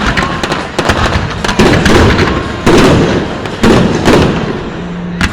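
Fireworks going off: a burst of fast crackling, then loud booms about a second apart, each trailing off in an echo.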